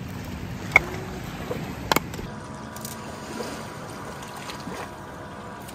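Split firewood dropped into a ring of sandstone rocks: two sharp wooden knocks, about one and two seconds in. A steady hiss of small waves lapping at the shore runs underneath.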